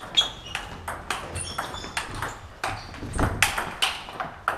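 Table tennis rally: the ball clicking off the bats and the table in quick succession, some hits with a brief high ping. A low thump sounds a little after three seconds in.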